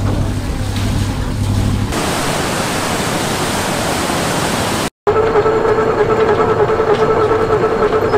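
A canal lock at work. First a boat's engine idles with a low hum. About two seconds in, this gives way to the rush of water pouring out through the lock's sluices. After a sudden cut near the middle, the lock gate's operating machinery runs with a steady mechanical whine.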